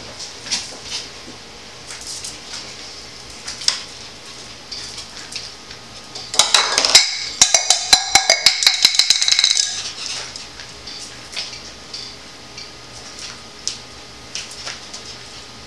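Light, scattered clicks and taps, with a dense run of rapid clicking and clatter for about three seconds in the middle.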